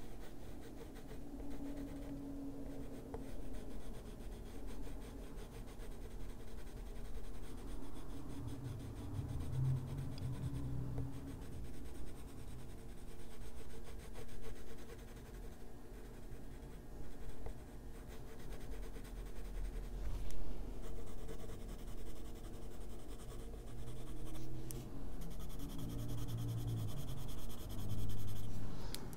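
Coloured pencil rubbing and scratching across paper in continuous coloring strokes.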